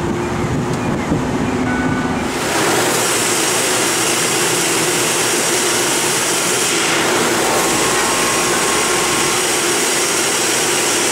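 Wind buffeting the microphone, then from about two seconds in the loud, steady machine noise of a dairy bottling line, a rotary filler running as it fills glass milk bottles.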